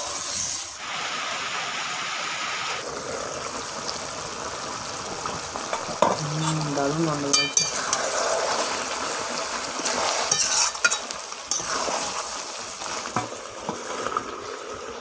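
Chicken and elephant foot yam frying in spiced oil in a metal kadai, sizzling loudly for the first couple of seconds, while a steel spoon scrapes and clinks against the pan as the meat is stirred and sautéed down (kasha). Near the end a metal lid is set on the pan.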